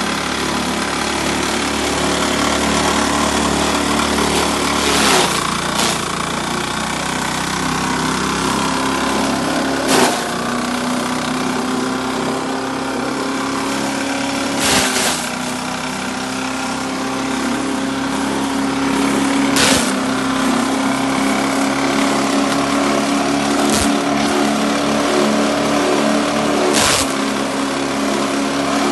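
Livestock feed chopper machine running steadily, with a short sharp burst of noise every four to five seconds.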